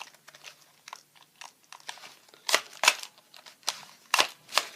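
Plastic clicks and clacks of a toy shotgun being loaded with effort, a handful of sharp snaps in the second half about half a second apart.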